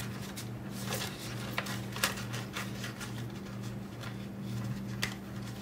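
Paper bills and a cash envelope being handled, with scattered soft rustles and clicks over a steady low hum.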